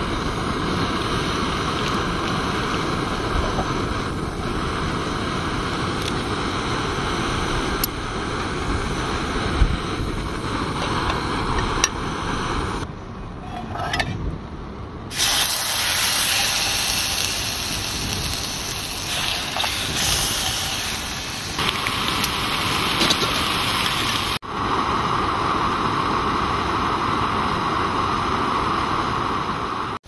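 Bratwurst sausages and onions cooking in beer in a pan over a gas camping stove: a steady sizzling and bubbling over the hiss of the burner, changing abruptly a few times.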